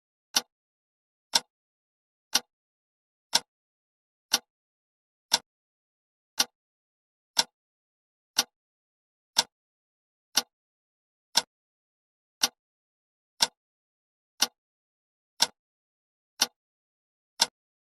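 Clock ticking once a second: sharp, even ticks with silence between them.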